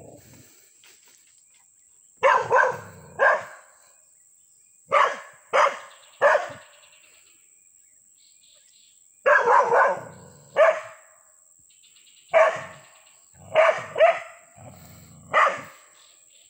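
A small dog barking in short groups of one to three, about a dozen barks with pauses between, alarm barks at a scarecrow it takes for a person.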